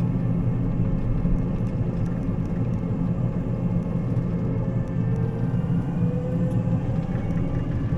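Combine harvester's diesel engine running steadily under road travel, a constant low drone.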